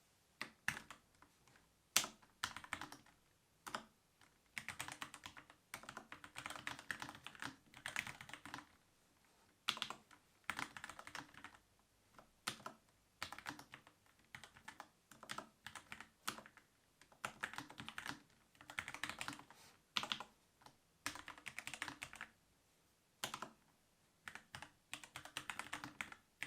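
Typing on a Kemove K68 65% mechanical keyboard with Cherry MX Red switches: quick runs of key clacks broken by short pauses, with an occasional single louder keystroke.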